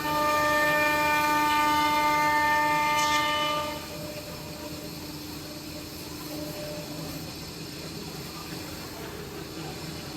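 Spindle of a 5-axis CNC wood router running at high speed, a loud steady whine with several overtones that stops after about four seconds, leaving a quieter steady running noise.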